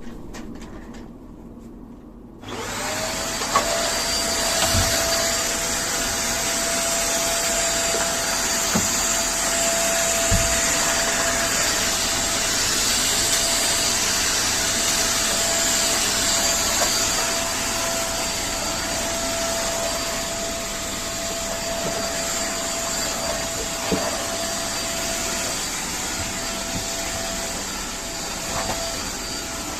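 Vacuum cleaner switching on about two seconds in, then running steadily with a constant whining tone over its rushing air noise; a few light knocks now and then.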